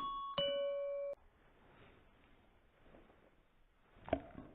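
Two-note electronic beep: a short higher tone, then a longer lower tone that stops abruptly about a second in, followed by near silence and a single sharp click near the end.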